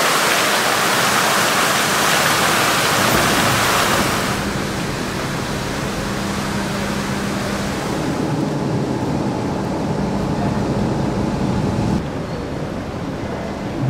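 Fountain jets splashing, a loud steady rushing hiss for about the first four seconds, then a sudden drop to a quieter outdoor background with a low steady hum.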